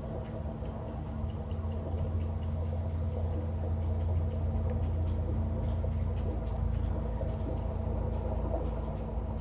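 A steady low mechanical hum, with a deeper drone that swells about a second in and fades away near the end.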